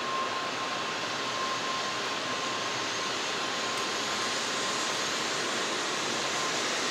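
Steady rushing noise of a Shinkansen station platform, slowly growing louder, with a thin steady tone that fades out near the end.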